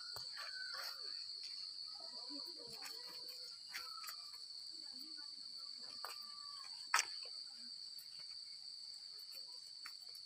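Steady high-pitched insect chorus, typical of crickets, with a few faint background sounds and one sharp click about seven seconds in.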